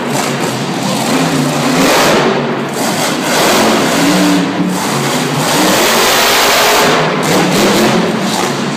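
Monster truck's supercharged V8 engine revving hard, its pitch climbing and dropping several times as the truck is driven through a jump and turns.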